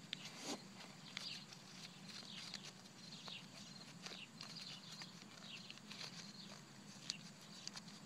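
Faint rustling and light clicks of a geocache's paper logbook and container being handled, with one sharper click about seven seconds in.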